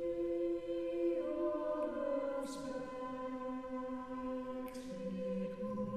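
Background music: a choir singing long held notes, the chord shifting a few times.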